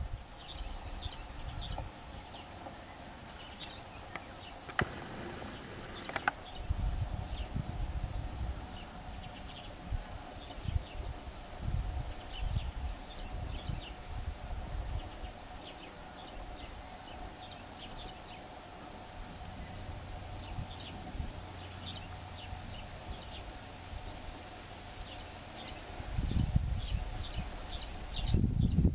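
Small birds calling in the background, repeated short, high, upward-sweeping chirps in loose clusters, over gusts of wind rumbling on the microphone and a faint steady hum. The wind gusts grow stronger near the end.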